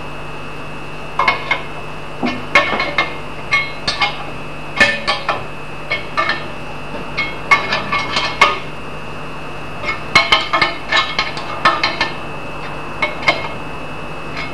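Irregular clusters of sharp metallic clinks and taps, steel on steel, some ringing briefly: an axe head being set and clamped in a steel axe filing jig.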